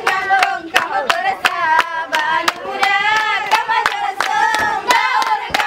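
A group of performers singing together to steady, rhythmic hand clapping, about three claps a second.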